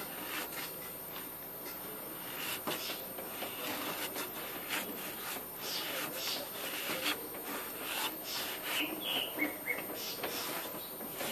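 A cloth being rubbed back and forth over the rusty metal burner plate of an electric hot plate, a scratchy wiping sound in repeated irregular strokes.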